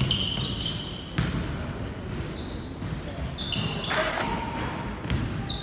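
Basketball being dribbled on a hardwood gym floor, with the thud of the ball and short, high squeaks of sneakers on the court in a large, echoing sports hall.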